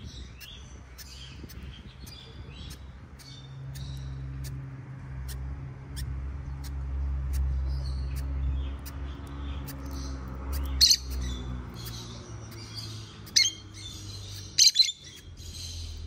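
Birds chirping throughout, with several short, loud, high squawks in the second half, over a low rumble.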